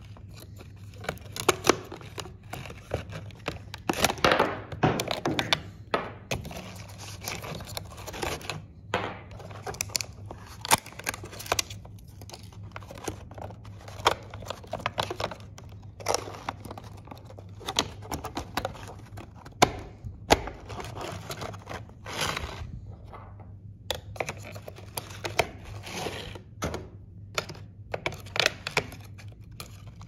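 AA lithium batteries being handled in the plastic battery compartment of a Google Nest Protect smoke alarm: irregular clicks, taps and small knocks of metal cells against plastic, with a few louder stretches of handling.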